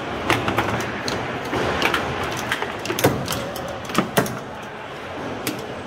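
Foosball table in play: irregular sharp clacks and knocks of the ball and the plastic figures on the rods, about eight in a few seconds, over a steady hall murmur.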